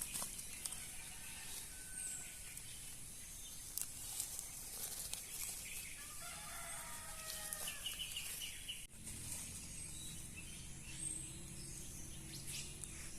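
A rooster crows once, about six seconds in; the crow lasts about a second and a half, with faint small-bird chirps around it.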